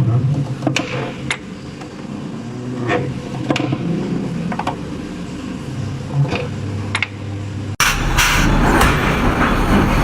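Factory machinery running with a low steady hum and scattered sharp clicks and knocks. At about eight seconds it cuts abruptly to louder, denser machine noise with rapid clattering.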